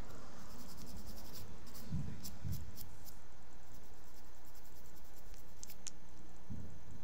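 Nail file scraping across fingernail tips in faint, quick, irregular strokes over a steady low hum, smoothing edges just cut with clippers.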